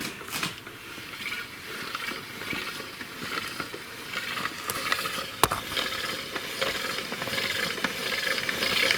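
Intermediate shaft of a VAZ 2106 engine being turned by hand to drive the newly fitted oil pump through its gear, test-turning the parts for binding: a light, continuous mechanical rattle of meshing gears with small ticks, and one sharp click about five and a half seconds in.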